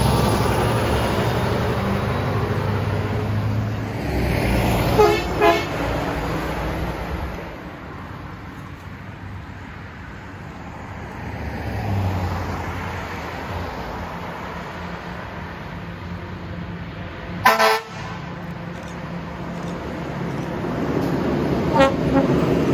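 Road traffic passing, with vehicle horn toots: two short toots about five seconds in, a single loud blast about three-quarters through, and two more short toots near the end as a fire ladder truck approaches with its engine running.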